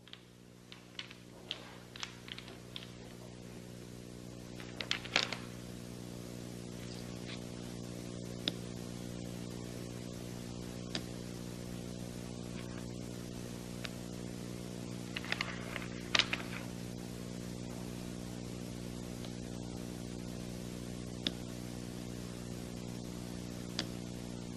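Toy blocks clicking and knocking against each other as they are stacked and handled: scattered sharp clacks, a few in quick clusters, over a steady electrical hum that swells in during the first few seconds.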